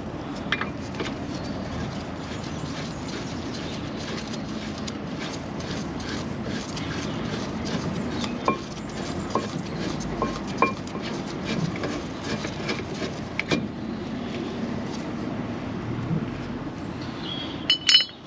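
Light metallic ticking and clinking of a steel socket turning on the 18 mm caliper carrier bolts of a Land Rover Freelander 2's front brake as they are undone. A few sharper ringing clinks come around the middle and a cluster near the end, over a steady background noise.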